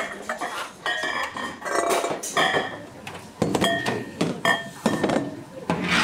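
Heavy ceramic bowls clinking and knocking against a metal steamer tray and a steel table as they are set down and moved: a quick, irregular series of sharp clinks, each with a brief ring.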